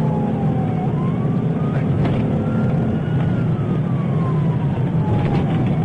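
Police siren wailing in a slow rise and fall over steady engine and road noise from the moving patrol car.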